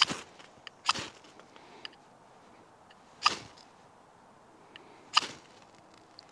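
A ferro rod (fire steel) scraped hard with a knife blade four times: short sharp rasps at the start, about a second in, past three seconds and past five seconds, throwing sparks. The sparks light the water-soaked wood-fibre tinder after the third strike.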